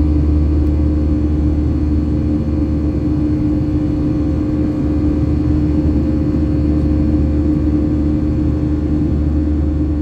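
Steady engine drone of a Boeing 737-800 in flight, heard inside the cabin: a deep rumble with a constant hum over it.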